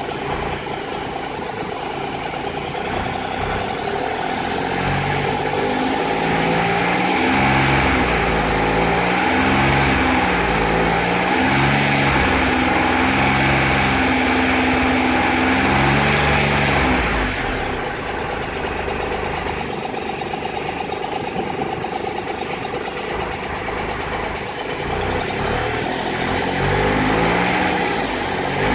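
Triumph Tiger Explorer's three-cylinder engine running with the bike standing, revved up and held at raised revs with small up-and-down wavers. It drops back to a lower speed about seventeen seconds in and rises again near the end. These are the revs, around 2800 rpm, at which a loose fairing part buzzes.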